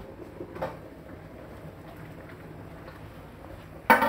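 Water-bath canner of jars boiling with a steady bubbling hiss, the lid off. Near the end the metal jar lifter clanks sharply against the jars and pot.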